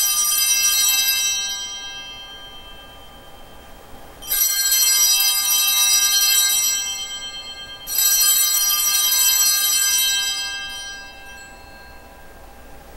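Altar bell ringing at the elevation of the consecrated host. A bright ring is already sounding as it starts, then the bell is rung twice more, about four and about eight seconds in, and each ring dies away over two to three seconds.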